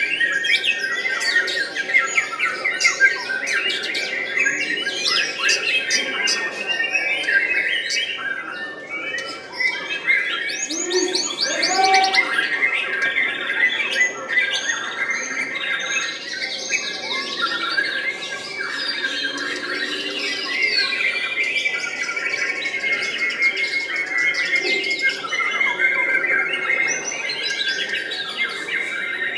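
White-rumped shama (murai batu) singing a continuous, varied song of fast trills, repeated whistled notes and sharp high chips, with other caged birds singing at the same time.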